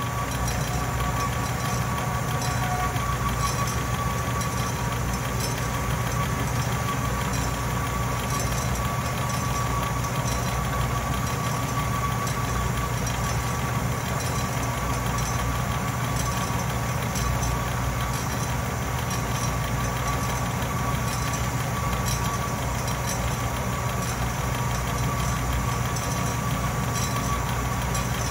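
Atlas metal lathe running under power while a boring bar cuts inside a spinning metal workpiece: a steady motor-and-drive hum with a thin, steady high tone over it.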